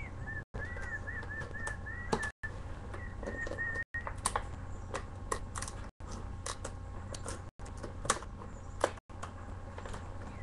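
Plastic headphone packaging being handled and pried at, giving irregular crackles and clicks over a steady low hum. A faint, wavering high chirping runs through the first few seconds, and the audio cuts out briefly several times.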